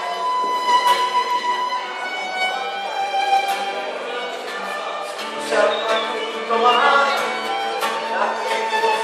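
A Moravian-Slovak cimbalom band playing a folk song: fiddles lead over strummed guitar, double bass and cimbalom. The band fills out with a stronger bass line about five seconds in.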